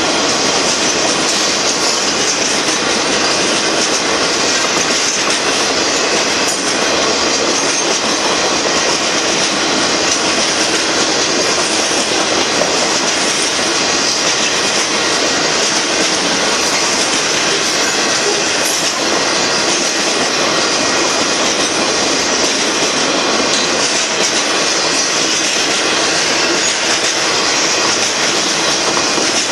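Union Pacific freight train's boxcars rolling past at close range: the steady, loud noise of steel wheels running on the rails.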